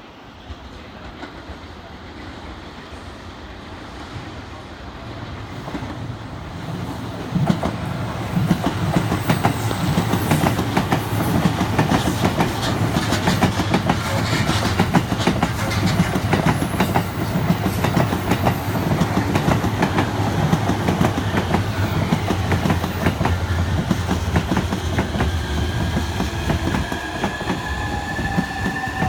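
A 15-car electric commuter train running alongside the platform, growing louder over the first several seconds. Its wheels clatter rapidly over rail joints, and near the end a rising electric motor whine comes in.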